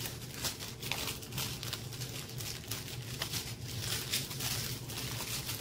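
Small plastic bags of diamond painting drills, joined on a strip, crinkling and rustling as they are handled, with many fine clicks throughout.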